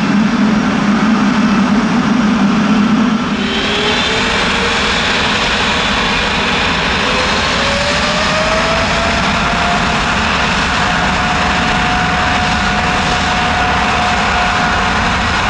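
Boeing 777-300ER jet engines (GE90-115B) running. A heavy low-pitched noise changes abruptly about three seconds in to steady jet noise with a high whine and a tone that slowly rises in pitch.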